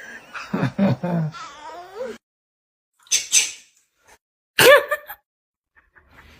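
A cat meowing in several separate calls with short silent gaps between them.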